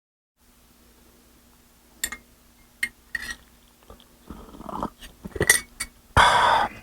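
A few sharp clinks and knocks of hard objects being handled, with some scraping, then a short loud rustling burst near the end, over a faint steady hum.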